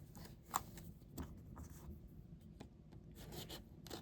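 Faint handling of packaging by hand: a few light clicks and soft rubbing, with a short rustle near the end.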